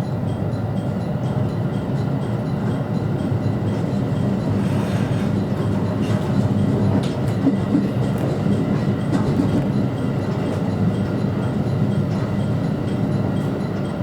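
JR West Special Rapid Service electric train running along the track: a steady low rumble of wheels and running gear, with a few faint clicks.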